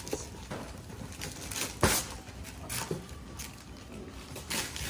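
Gift wrapping paper being torn and rustled and a cardboard box handled, in irregular crinkles and scrapes, with one sharp knock about two seconds in.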